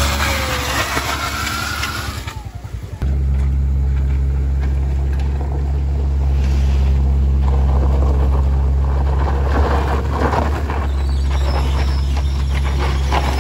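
Small front-wheel-drive cars climbing a steep loose-gravel slope: first a Toyota Calya driving past close by, then, after a sudden change about three seconds in, a Honda BR-V pulling uphill under load, its tyres crunching and slipping on the gravel, over a steady low engine drone.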